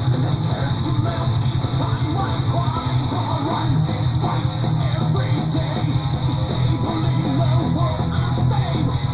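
Melodic heavy metal music with guitars, played back from a recording.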